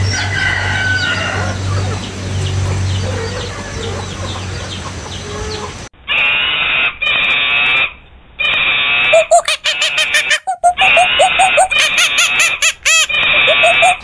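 Chickens clucking. About six seconds in, the sound cuts abruptly to a different, louder recording of repeated high-pitched calls in bursts with short gaps.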